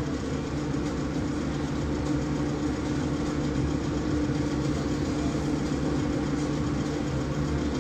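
A steady low mechanical hum that holds the same pitch throughout.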